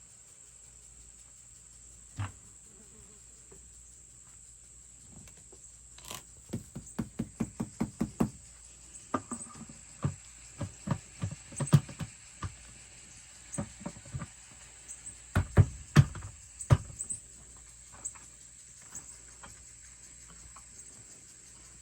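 Knocks and taps on a plastic bucket chicken feeder: a quick run of about four taps a second, then scattered knocks and a few louder thumps near the end.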